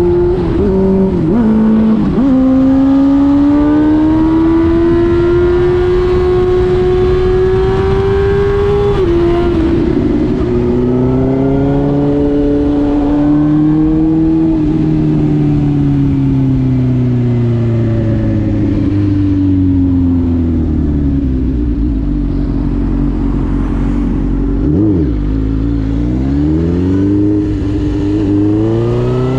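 Suzuki GSX-R1000 K5 inline-four engine with an open exhaust, its dB-killer removed, under way at road speed: quick upshifts at the start, the revs climbing through a gear, another upshift about ten seconds in, then a long steady fall in pitch as it slows. Near the end there is a short rev blip, then hard acceleration with the pitch rising steeply.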